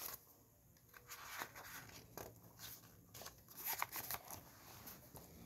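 Pages of a hardcover children's picture book being handled and turned: faint paper rustling with scattered crackles and soft clicks, busiest around four seconds in.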